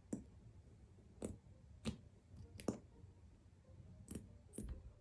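Faint, sharp clicks and small pops from a squeezed plastic bottle of copper acrylic paint as it squirts dots onto a canvas: several at uneven intervals, a few close together.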